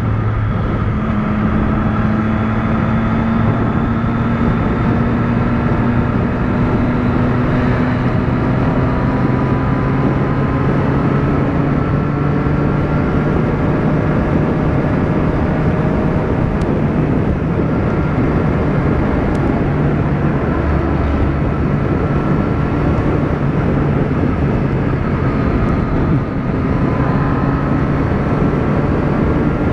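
Motorcycle engine running steadily at highway cruising speed under a constant rush of wind noise; its drone climbs slowly in pitch over the first dozen seconds as the bike gathers speed, then holds level.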